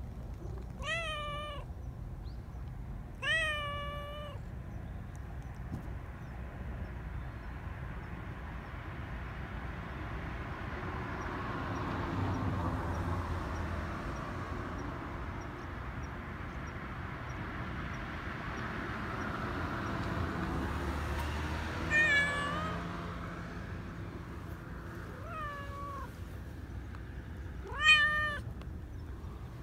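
Black Persian cat meowing: short calls in a pair near the start, then three more near the end, the last the loudest. A low background rumble swells and fades between them.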